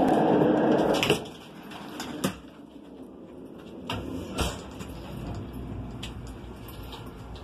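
A loud rushing noise cuts off abruptly about a second in, followed by a few sharp clicks, one as a car button is pressed about four seconds in. A low steady hum then starts: the Wheel-O-Vator lift elevator's drive setting off.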